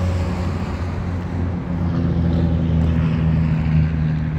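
Steady low engine drone of passing motor traffic, with a deep hum that strengthens a little after about a second and a half.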